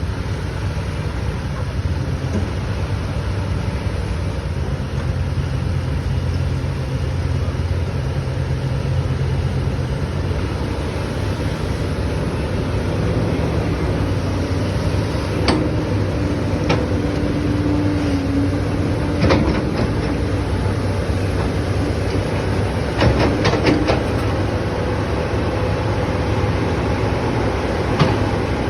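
XCMG 370CA excavator's diesel engine running steadily as the machine works, with a held tone for a few seconds midway and a handful of sharp knocks, several in a quick cluster about four-fifths through.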